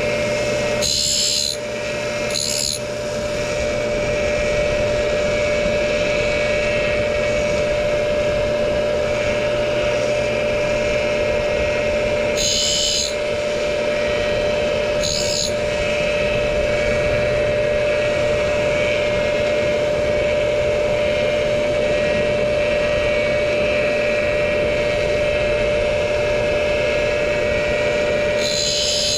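Tool and cutter grinder running with a steady whine as its dish wheel takes very light cuts on the teeth of a 15-tooth milling cutter, sharpening their primary clearance. Five brief high hissing bursts stand out from the steady grinding noise.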